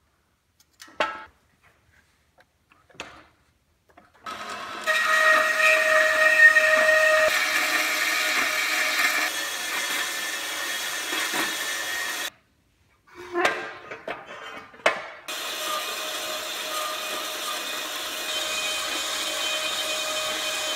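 Portable band saw cutting through a steel angle iron, a loud steady motor-and-blade noise with a held metallic ringing tone. A few light clicks come before it starts, and it breaks off abruptly a little past halfway, with two knocks before it runs again.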